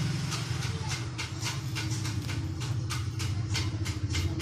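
A motor or engine running steadily with a regular quick clicking, about five clicks a second.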